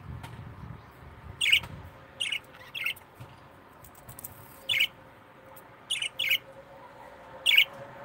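Small caged pet parrots giving short, sharp chirps, about seven in all, some in quick pairs.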